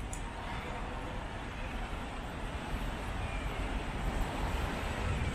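Street traffic passing on a busy city boulevard: a steady wash of car engine and tyre noise.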